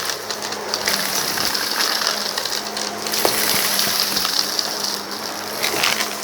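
Vacuum cleaner running over a rug and sucking up a sand-and-debris mix, the grit crackling and rattling as it is drawn through the nozzle over a steady motor hum.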